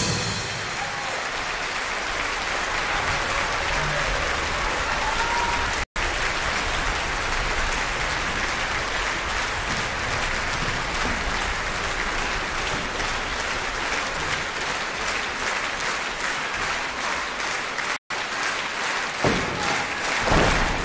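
Concert-hall audience applauding at the end of a dance number. Near the end the clapping falls into a steady rhythm of about three claps a second, with a few heavy thumps.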